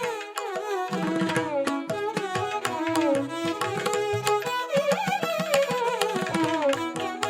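Background music in a South Indian classical style: a bowed or plucked melody gliding over a steady drone, with rapid tabla-like drum strokes.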